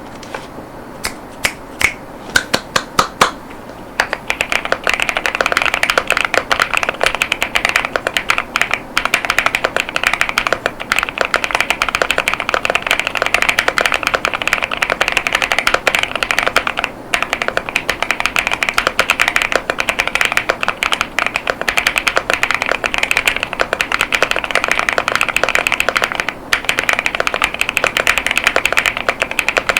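Mechanical keyboard typing on an Angry Miao CyberBoard with Kailh Clione Limacina 48gf tactile switches and polycarbonate Cherry-profile keycaps. A few separate keystrokes at first, then fast continuous typing from about four seconds in, broken by two brief pauses.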